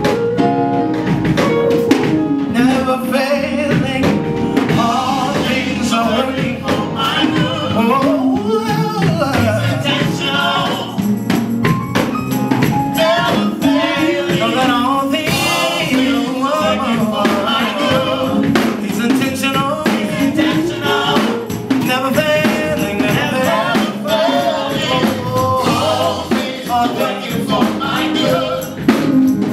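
Gospel worship music: singing over a band with steady percussion.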